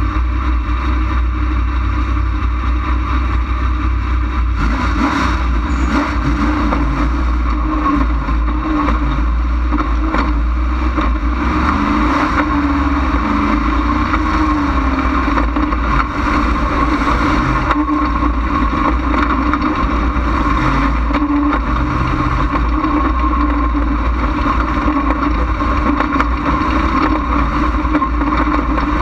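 Dirt late model race car's V8 engine, heard close from a hood-mounted camera, running loud and steady, its pitch rising and falling with throttle.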